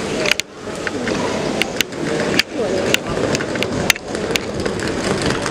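Busy market ambience: a continuous murmur of distant voices with scattered sharp clicks and clinks, about six of them, spread through it.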